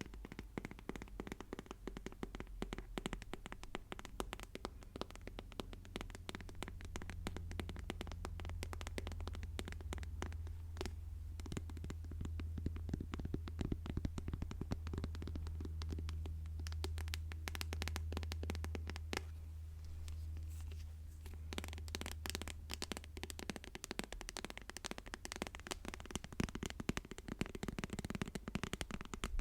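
Fast ASMR tapping, many light taps a second in dense runs, over a low hum that fades away about three quarters of the way through.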